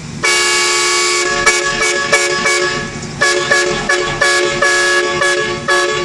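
Loud train horns fitted to an Oldsmobile Cutlass, sounding a chord of several notes: one long blast of about a second, then a rapid string of short honks with a brief lull about three seconds in.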